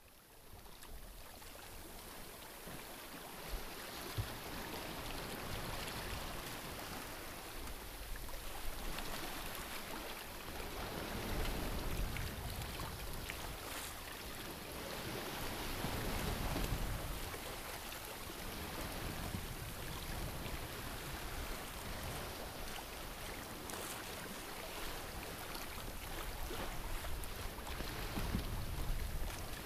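Sea water rushing and hissing along the hull of a Cape Dory 36 sailboat moving under sail, swelling louder every few seconds as the bow wave surges.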